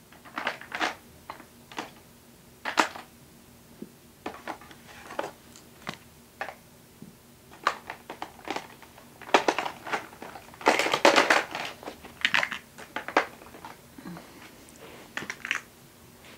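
Someone handling and rummaging through things off-camera: scattered clicks and knocks with bursts of rustling, thickest about ten to thirteen seconds in.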